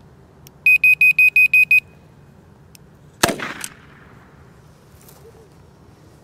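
DT Systems Super Pro remote dummy launcher giving a rapid string of loud, high beeps, then firing with one sharp bang that throws a training dummy for a retriever.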